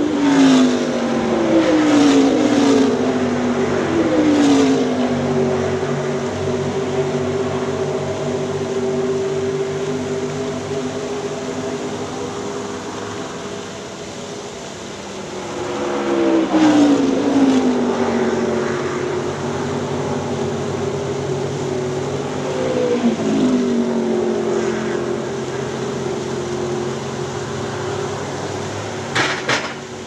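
Car engines passing one after another, each engine note sliding down in pitch as it goes by, three times, over the steady splash of a waterfall fountain. A couple of sharp pops come near the end.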